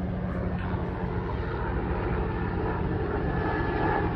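Helicopter flying overhead, a steady low rotor and engine noise.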